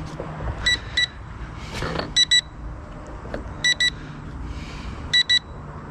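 Sanrock U61W drone's remote controller beeping in short double beeps, a pair about every second and a half, four pairs in all.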